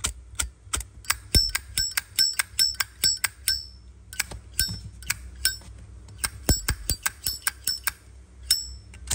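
Zippo lighter's lid being flicked open and snapped shut over and over, each stroke a sharp, ringing metallic clink. The clicks come quickly, about three a second, pause briefly about four seconds in, then come more spaced out toward the end.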